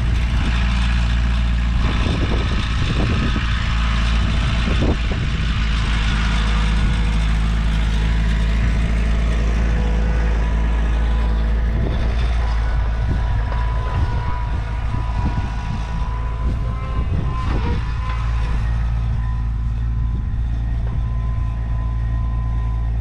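An old truck's engine running steadily as it drives, with the odd knock and rattle along the way.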